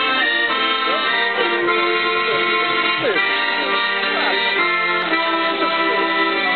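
Live music with an accordion tone, playing held, sustained chords through a stage PA.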